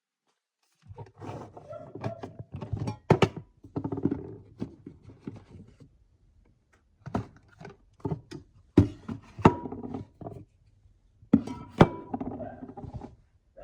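A run of irregular knocks, thuds and clatter, with a few brief ringing strikes among them.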